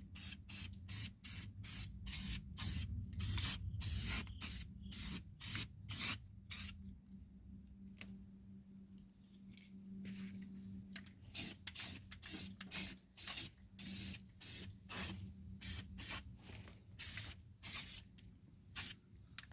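Aerosol can of Rust-Oleum rubberized black undercoating sprayed in short, rapid hissing bursts, about two or three a second. The bursts stop for about four seconds midway, then resume.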